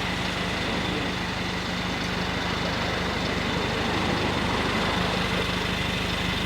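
A car engine idling steadily, with an even low hum and faint high steady tones.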